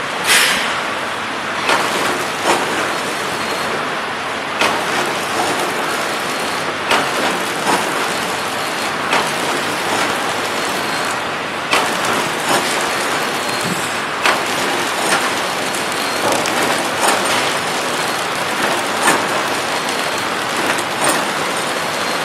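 Servo-driven flow-pack wrapping machine running, a steady mechanical whir with sharp clicks about once a second as it feeds, seals and cuts the wrapped vegetable packs.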